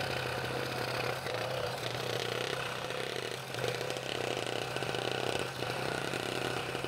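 Scroll saw running steadily with a fresh number 5 blade, cutting a curve through a quarter-inch-thick hardwood bowl ring blank, with a constant motor hum under the cutting noise.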